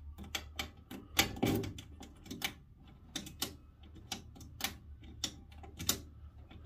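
Irregular sharp clicks and clacks, a few a second, with a louder knock about a second in, as a hand twists and seats a keyed ignition switch in a metal dash panel.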